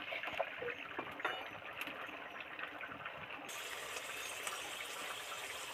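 Jackfruit curry bubbling faintly in a wok over a wood fire, with a few light clinks of a steel spatula and bowl.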